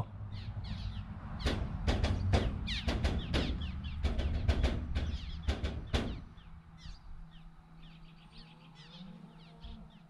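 Crows cawing: a run of harsh calls, each falling in pitch, loudest in the first half and fading to scattered fainter calls after about six seconds.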